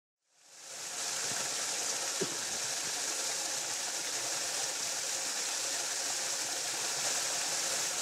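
Small waterfall splashing into a rock pool: a steady rush of falling water that fades in over the first second.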